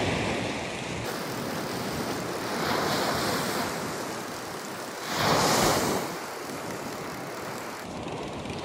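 Small ocean waves breaking and washing up a sandy beach, a steady rush of surf that swells about three seconds in and most strongly a little past the middle.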